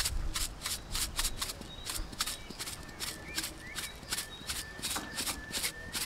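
Plastic salt shaker bottle shaken over raw pork, the salt rattling out in quick, even shakes, about three a second.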